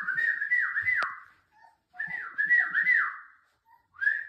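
A dog whining in high, falling cries, in bursts of several whines about two seconds apart, as if wanting to be let out.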